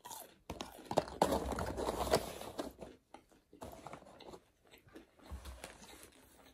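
A person biting into and chewing food close to the microphone, wet, crackly mouth sounds that are loudest for about two seconds near the start and then go on more softly.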